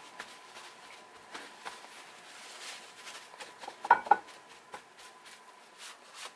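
Paper towels rustling and pressing against wet sous-vide steaks as they are patted dry, with scattered small clicks. About four seconds in, a couple of quick knocks as the steaks are shifted on the ceramic plate.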